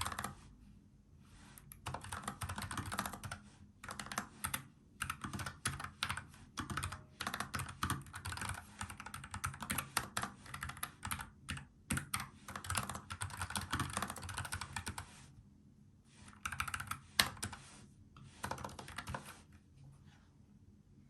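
Typing on a NuPhy Air75 low-profile mechanical keyboard with brown tactile switches: fast runs of keystroke clicks in bursts with short pauses, one louder key strike a few seconds before the typing stops near the end.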